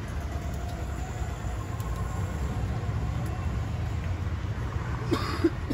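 Steady low rumble of street traffic, with a couple of short knocks near the end.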